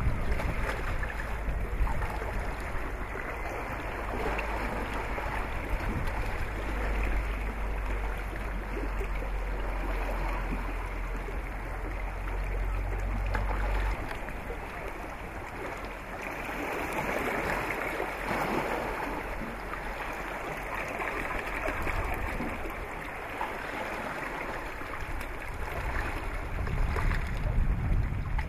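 Water noise with wind rumbling on the microphone; the rumble stops suddenly about halfway through, leaving a steady wash of water.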